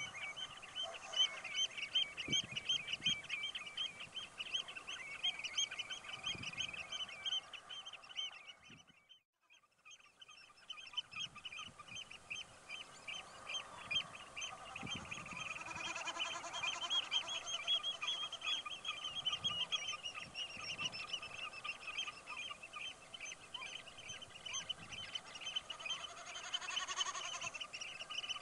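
Dawn chorus of wading birds, with many rapid, repeated high calls overlapping. The chorus breaks off briefly about nine seconds in, then resumes.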